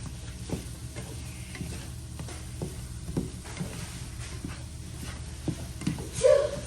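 Eggs being scrambled in a frying pan: a spatula scrapes and knocks against the pan at irregular short intervals over a faint sizzle, working egg that is sticking to the pan. One louder sound comes near the end.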